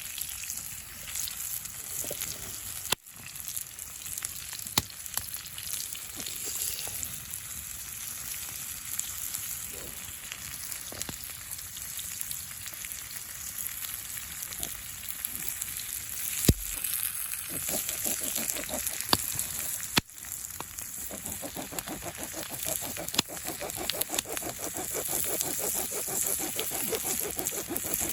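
Food sizzling in a pan over a campfire, with occasional sharp pops and spatters. The sizzle grows denser and louder about two-thirds of the way in.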